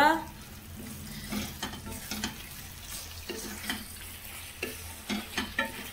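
A spatula stirring cabbage Manchurian balls through thick sauce in a non-stick wok, with uneven scrapes and taps against the pan over a sizzle.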